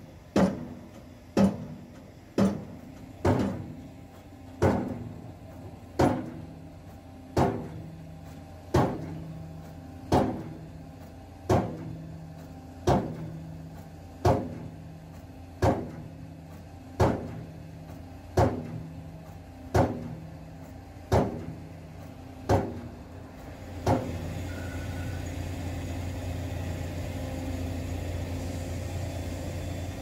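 Excavator-mounted hydraulic impact pile driver hammering a pile: sharp, ringing blows at a steady beat, about one a second at first, then slowing to about one every 1.4 s. The blows stop about 24 seconds in, and a steady engine hum carries on.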